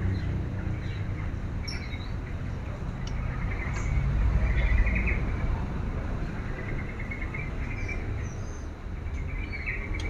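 Caged songbirds chirping in short bursts that recur every second or two, over a steady low rumble of background noise.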